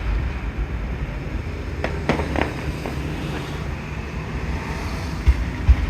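Aerial fireworks bursting: a few sharp cracks about two seconds in and low booms near the end, over a steady low rumble.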